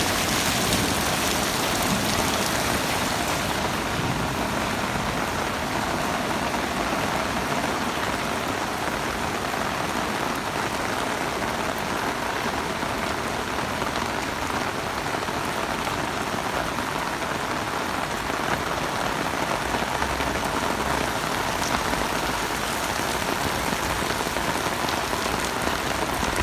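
Heavy rain falling steadily on surfaces, an even, unbroken hiss.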